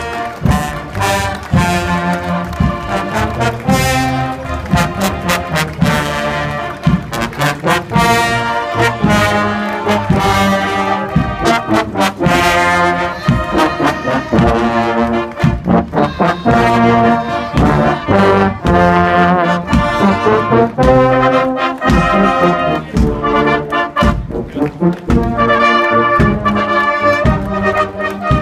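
Marching brass band, with trombones and euphoniums, playing a tune.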